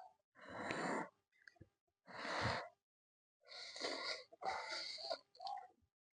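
Maggi instant noodles being slurped up close to the microphone, in about five short airy bursts with brief pauses between them.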